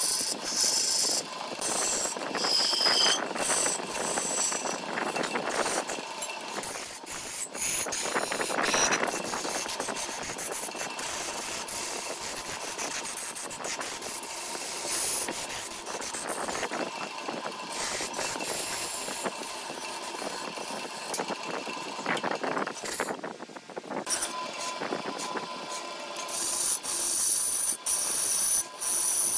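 Wood lathe turning a wooden vase blank while a hand-held gouge cuts into the spinning wood: a continuous scraping, rasping hiss of the tool shaving the surface, broken by short catches and ticks. The cutting grows louder and choppier near the end.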